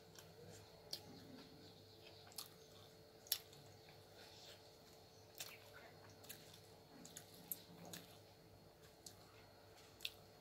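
Faint eating sounds: soft chewing of uttapam with scattered sharp clicks and smacks, about eight or nine of them, the loudest a little over three seconds in.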